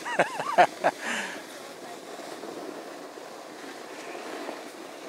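Snowboard sliding over groomed snow, a steady rushing with wind on the microphone. About a second of loud, short, pitched scraping squeaks comes at the start.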